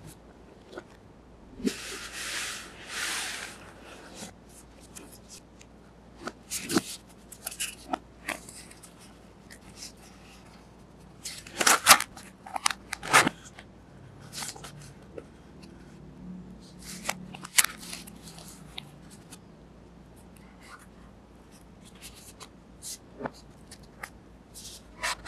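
Cardboard box and red cardboard insert handled with gloved hands: a scatter of taps, scrapes and crinkles as flaps are opened and slid. A longer rubbing hiss comes about two seconds in, and a quick cluster of sharper clicks about twelve seconds in.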